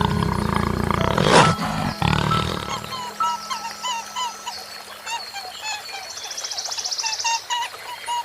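A lion's low rough roar and growl for the first few seconds, peaking about a second and a half in, then stopping. Quick repeated chirps follow, with a fast high buzzing trill near the end.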